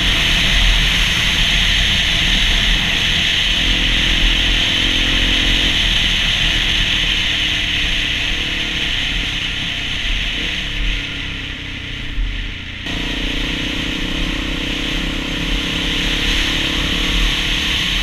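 Dirt bike engine running under way, mostly buried under heavy wind rush and road noise on the microphone. The sound dips and then changes abruptly about two-thirds of the way in.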